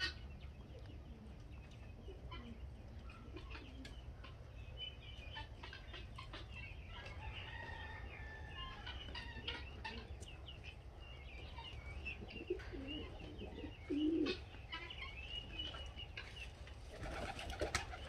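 Birds in a silver pheasant pen: many short, high chirping and twittering calls throughout, over a steady low rumble. There is a short, louder low note about fourteen seconds in, and a burst of wing-flapping near the end.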